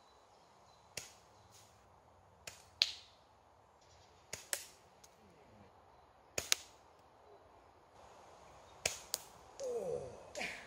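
Catapult shots with steel ball bearings at a can on a tree stump: a series of sharp cracks every couple of seconds, mostly in close pairs a fraction of a second apart, as the balls miss the can and strike the wood.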